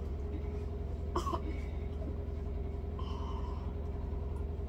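Gulping and swallowing while water is downed quickly from paper cups: a short sharp gulp about a second in and a softer one about three seconds in, over a steady low hum.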